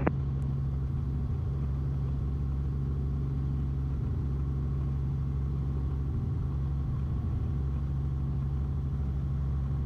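Robinson R44 helicopter's six-cylinder Lycoming piston engine and rotors running in a low hover, a steady, unchanging low drone.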